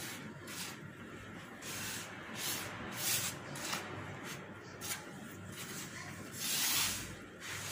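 A hand rubbing and stirring a dry mix of fine semolina, flour and sesame seeds across a clay kneading dish, in repeated hissy, sweeping strokes that are loudest near the end.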